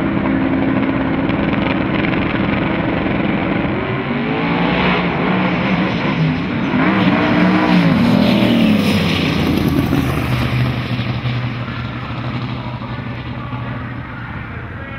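Drag-race car engines, one a twin-turbo Camaro, running steadily at the starting line, then launching hard. The engine note climbs, swells loudest and bends up and down as a car passes close about eight seconds in, then fades away down the track.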